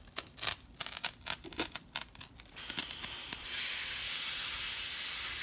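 Hand-held fireworks: a sparkler crackling with quick, irregular pops, then from about halfway a steady hiss as a newly lit firework starts spraying sparks.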